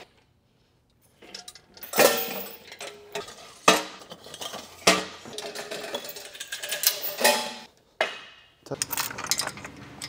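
Steel folding engine hoist (ACDelco shop crane) being unfolded and set up: several sharp metallic clanks and rattles of its legs, boom and chain, the loudest about two and four seconds in.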